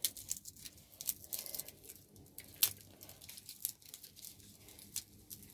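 Dry, brittle okra pods being handled and split apart by hand: a scatter of short, sharp crackles and snaps, one louder crack about halfway through.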